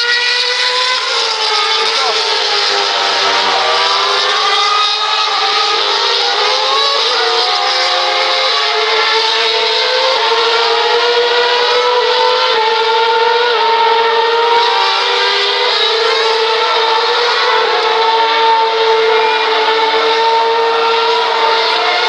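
Several Formula One cars' 2.4-litre V8 engines running at high revs through a fast corner sequence. The engine notes overlap, and their pitch glides up and down with gear changes.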